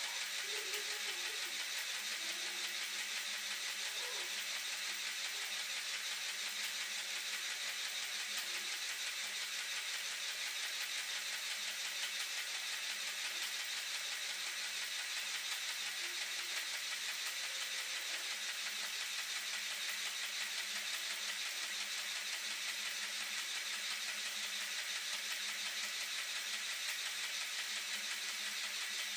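Steady, even hiss with a faint low hum, unchanging throughout.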